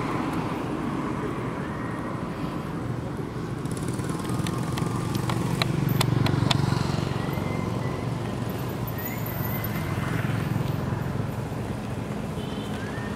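Steady low engine rumble of passing motor traffic, swelling to its loudest about halfway through as a vehicle goes by, with a few sharp clicks in the middle.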